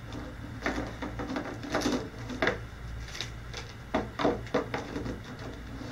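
Small plastic mesh baskets being set down on a table and knocked against each other: a string of light clacks and knocks, several close together about four seconds in.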